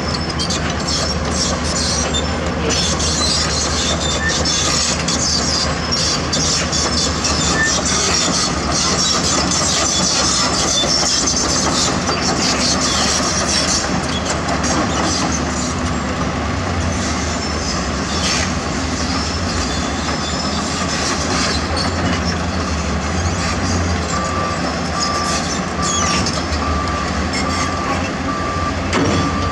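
Heavy diesel earthmoving machines running, with the clanking and squealing of steel crawler tracks. A reversing alarm starts beeping steadily about five seconds before the end.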